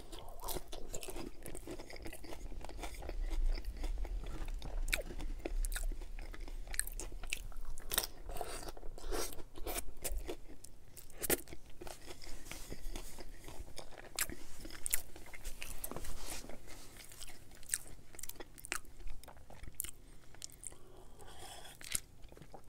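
Close-miked biting and chewing of a crunchy hard-shell corn taco: many irregular sharp crunches as the shell breaks up in the mouth, thinning out toward the end.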